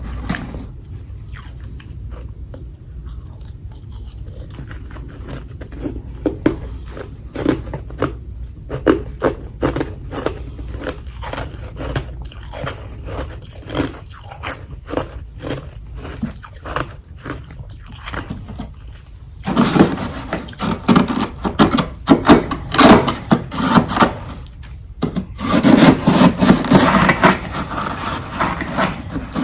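Close-up crunching of humidifier freezer frost chunks as they are bitten and chewed: a run of separate crisp crunches, then two loud bouts of dense, rapid crunching, the first about two-thirds of the way in and the second near the end.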